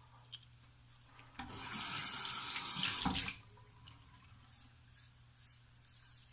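Water tap running into a sink for about two seconds, then shut off.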